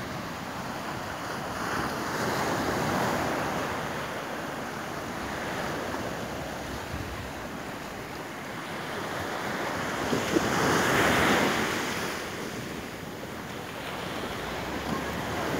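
Atlantic surf breaking and washing up a sandy beach, a steady rush that swells twice, most strongly about ten seconds in, with wind buffeting the microphone.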